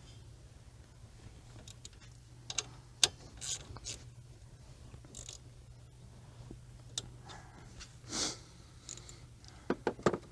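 Scattered metal clicks and clanks of hand tools and brake parts being handled during brake reassembly. The sharpest knock comes about three seconds in, a short scraping rasp about eight seconds in, and a quick run of clicks near the end, all over a steady low hum.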